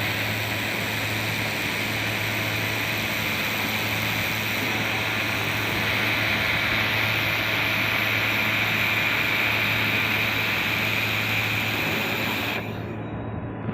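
Handheld fiber laser welding machine running a continuous weld: a steady hissing noise with a low hum underneath, stopping abruptly about a second before the end.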